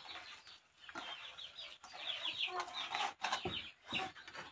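Chickens calling in runs of short, quick falling notes, with a light knock about three seconds in.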